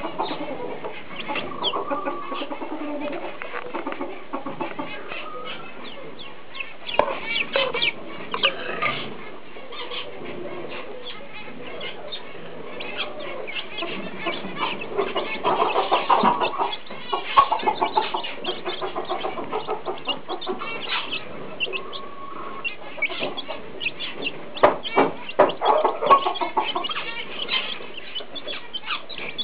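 A brood of young chicks peeping and cheeping continuously, a steady chatter of short, high chirps with several louder flurries.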